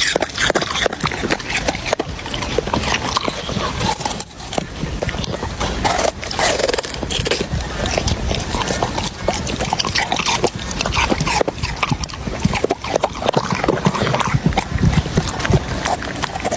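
Animal sounds, dense and busy with many short noises, from what is most likely a pet such as a dog.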